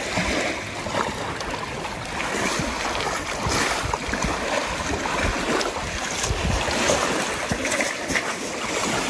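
Lake water washing and sloshing at the shoreline, a continuous rushing noise, with gusts of wind buffeting the microphone.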